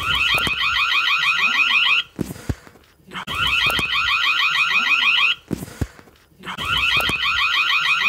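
Indoor electronic doorbell ringing in a rapid warbling trill. It sounds three times, each ring lasting about two seconds, roughly three and a half seconds apart, with a sharp click in the gaps between rings.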